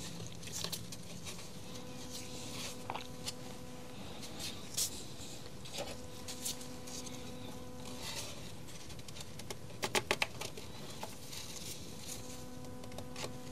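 Faint handling noises of small plastic parts being fitted into a Makita UC3541A electric chainsaw's housing by gloved hands, as the oil tank is connected to the oil pump: scattered light clicks and taps, with a quick run of four or five clicks about ten seconds in. A faint steady hum runs underneath.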